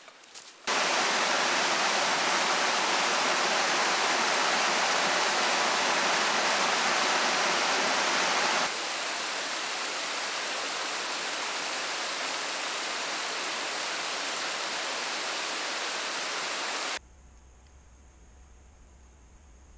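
Steady rush of running water that starts suddenly about a second in, drops a little in level at about nine seconds and cuts off near the end, leaving a faint low hum.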